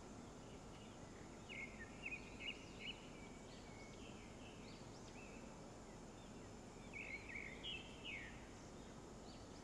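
Faint outdoor background noise with a bird calling in short, quick chirps that bend up and down in pitch. The chirps come in two bouts, one a couple of seconds in and one later on.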